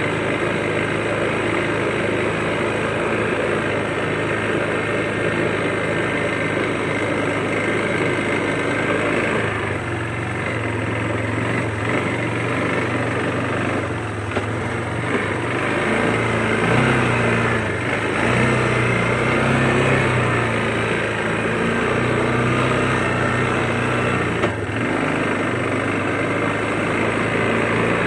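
Quad bike (ATV) engine running while being ridden, steady at first and then rising and falling in pitch with the throttle. A single sharp knock comes late on.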